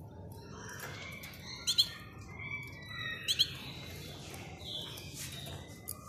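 Caged canaries chirping: a run of short high chirps and calls, with two loud sharp double chirps about a second and a half apart.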